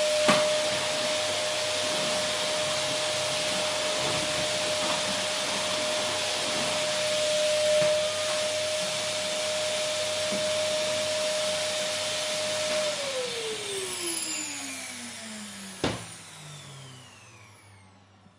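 Vacuum cleaner running steadily, its motor whine holding one pitch over the rush of air. About thirteen seconds in, the motor winds down: the whine slides steadily lower and the air noise fades away, with a sharp click near the end.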